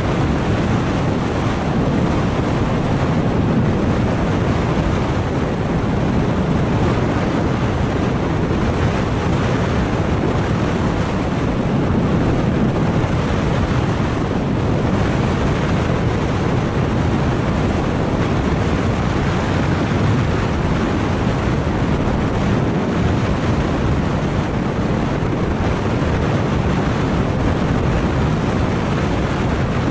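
Steady wind rushing over a GoPro Hero 5 Black's microphone on a scooter moving at about 53 km/h, mixed with road and riding noise. It is an unbroken, even noise that is heaviest in the low range.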